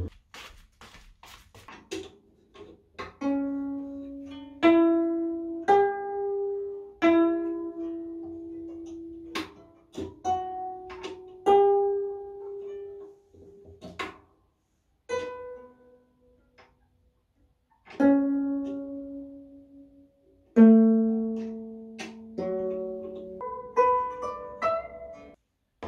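Gayageum, the Korean plucked zither, played solo: a slow melody of single plucked notes, each ringing out and fading, with a pause partway through and quicker notes near the end. A few soft clicks come in the first two seconds before the playing starts.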